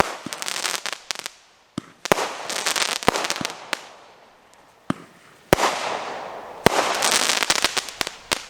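Consumer firework cake firing aerial shells: about five sharp bangs at irregular gaps, each followed by a dense crackling spray that fades over a second or so.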